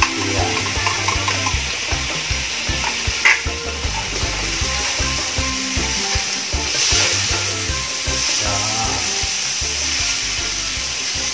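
Chopped garlic, onion, tomato and bell pepper sizzling in hot oil in a frying pan as they are sautéed, with a spatula stirring and scraping across the pan. A brief sharp clink about three seconds in.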